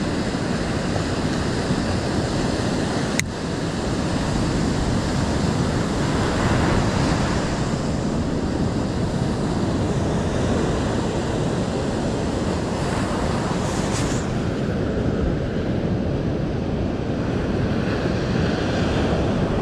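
Surf breaking steadily on a sand beach, with wind on the microphone. A single sharp click about three seconds in.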